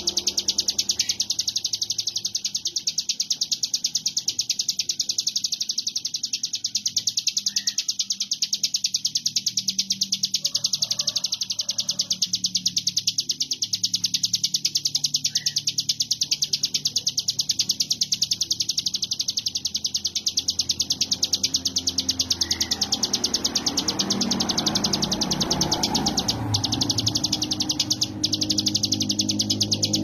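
Ciblek gunung (a prinia) singing a continuous rapid rattling trill: very fast, evenly repeated high notes with no breaks.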